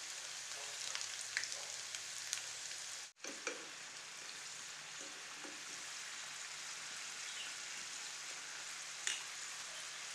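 Samosas deep-frying in a pan of oil: a steady sizzle with small crackles and pops, briefly cutting out about three seconds in.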